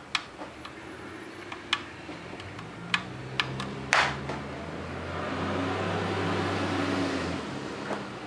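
Small sharp clicks and taps of a screw being driven in and tightened on a Tippmann A5 paintball marker's body. From about two and a half seconds in, a low steady hum builds, swells and fades out near the end.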